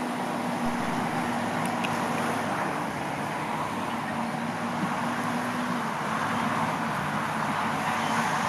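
Massey Ferguson 445 tractor's diesel engine running steadily, getting a little louder toward the end.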